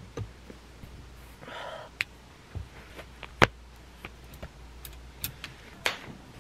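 Clothing being handled on a wire closet shelf and while dressing: soft fabric rustling with scattered light clicks and taps, the sharpest about halfway through, over a low steady hum.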